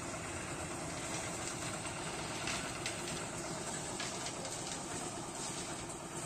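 Engine-driven drum concrete mixer running steadily while its tipped drum turns and discharges wet concrete, with a few short clatters about halfway through.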